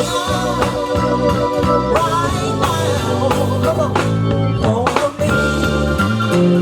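Band music with a singing voice, organ and drums.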